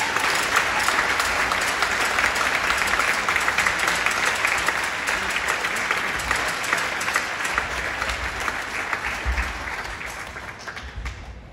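Audience applauding, fading away over the last couple of seconds.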